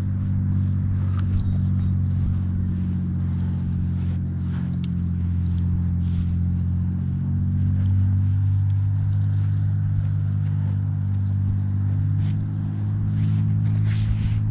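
A steady low mechanical hum, like an engine running, with faint rustling and scattered light clicks over it.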